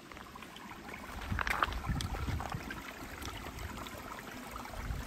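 Footsteps on loose stones and gravel, irregular crackling steps with low thumps starting about a second in, over a faint trickle of shallow river water.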